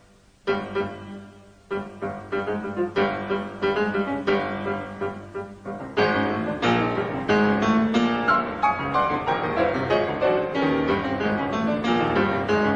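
Grand piano played solo in a classical piece: after a brief pause, single struck notes and chords that grow fuller and busier about six seconds in.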